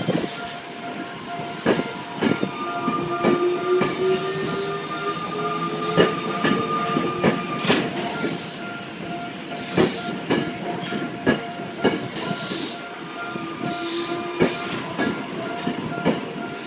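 Ginza Line subway train rolling slowly over a level crossing, its wheels clacking and knocking over the rail joints. A motor whine rises in pitch for several seconds, while a level-crossing warning bell keeps ringing.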